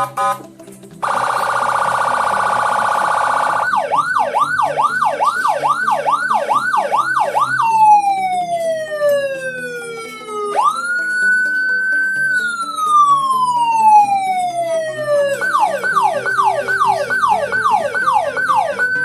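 Electronic police-escort siren sounding through a 15-watt TOA horn speaker, stepping through its tone patterns: a few short beeps, a fast warble, a quick up-and-down yelp about twice a second, a long falling sweep, a slow wail that rises and falls, then a faster yelp.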